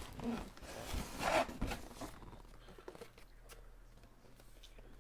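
Packaging being torn and rustled open by hand, with rasping and a few short clicks in the first two seconds, then only faint handling sounds.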